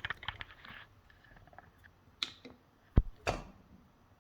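Small metal clicks and taps of a lock and its picking tools being handled, with a run of light ticks at first and one sharp click about three seconds in, followed by a brief scrape.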